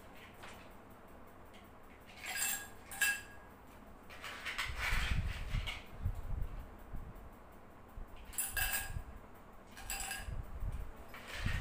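Ice being scooped from an insulated cooler bag and dropped into drinking glasses: four short, ringing clinks against the glass, with dull knocking and rattling of the ice and bag in between.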